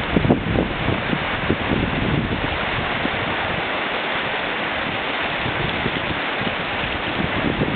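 River whitewater rushing steadily through a rapid, with some low rumbling near the start.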